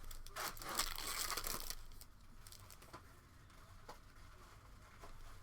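Plastic card packaging crinkling and tearing for about a second and a half as a box break goes on, then a few faint clicks of cards being handled.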